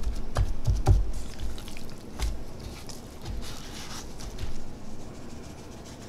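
Hands seasoning a raw skirt steak, with irregular taps, rubs and squishy handling of the meat and rub container, the loudest clicks and thumps in the first second.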